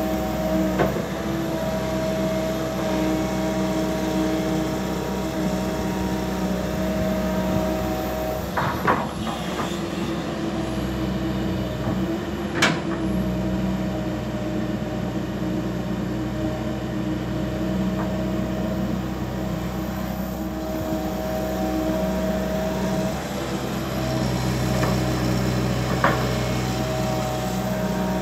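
Komatsu PC200LC hydraulic excavator's diesel engine running steadily under load while it digs and swings soil, with a constant pitched hum. A few sharp knocks break in, the loudest about halfway through.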